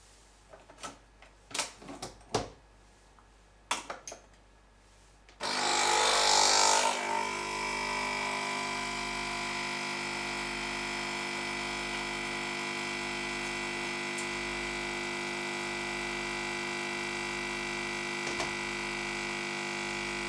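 A few light clicks and knocks as a capsule is loaded into a Nespresso Pixie capsule machine. About five seconds in its vibratory pump starts with a louder rush, then settles into a steady hum while the espresso pours, and it stops suddenly near the end.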